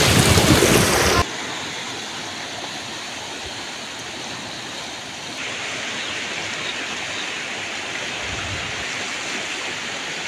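Floodwater rushing, a steady noisy rush. It is loud for about the first second, then drops suddenly to a softer steady rush.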